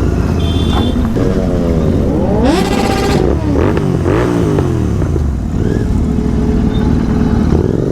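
Motorcycle engines revving over a steady low rumble of running bikes. The pitch rises sharply about two and a half seconds in, then falls away in several overlapping glides as more than one bike revs down or goes by.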